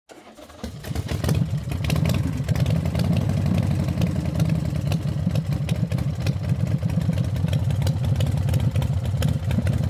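A combustion engine running steadily with a clattery, fast ticking, fading in over the first second or so.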